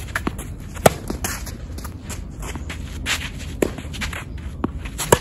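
Tennis rally: a ball struck sharply by racquets three times, about a second in, near four seconds and at the end, with players' footsteps shuffling and scraping on the court between the shots.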